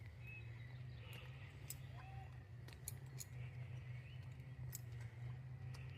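Faint quiet ambience: a steady low hum with scattered light clicks and a few faint short chirps.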